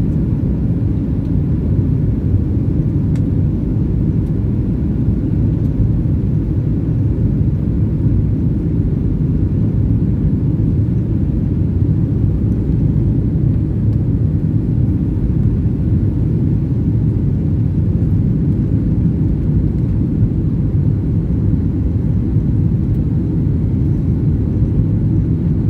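Steady low rumble inside the cabin of a Boeing 737-800 on final approach with flaps extended: engine and airflow noise, even throughout with no separate events.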